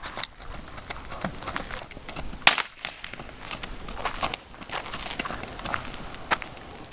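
Hoofbeats of two ridden horses moving over dirt ground, irregular knocks and clicks. One sharp snap stands out about two and a half seconds in.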